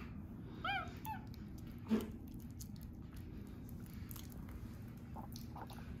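Capuchin monkey giving two short, high calls, each rising then falling in pitch, a little under a second in, followed by a single soft click; otherwise quiet.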